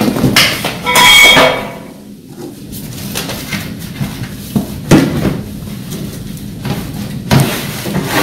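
Sheet-metal barbecue grill parts being handled and lifted out of a cardboard box, plastic wrap and cardboard rustling. A ringing metal clang about a second in, and a few sharp knocks later on.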